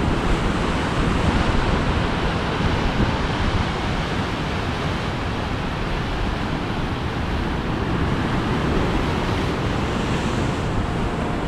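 Ocean waves crashing on the shore in a steady rush of surf, with wind buffeting the microphone.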